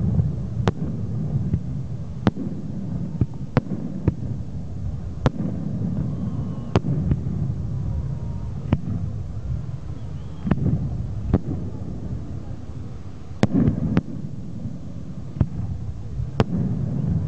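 Fireworks going off: sharp bangs at irregular intervals, roughly one a second, over a continuous low rumble of more distant bursts.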